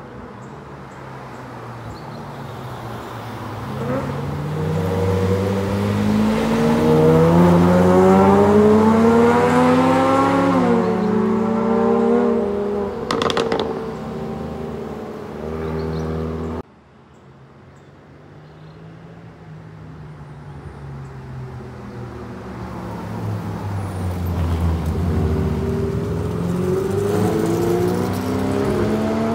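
Sports car engines accelerating hard past the camera: the engine note climbs for several seconds, drops at a gearchange about ten seconds in and climbs again. After a sudden cut about two-thirds of the way through, another engine builds up as more vehicles approach.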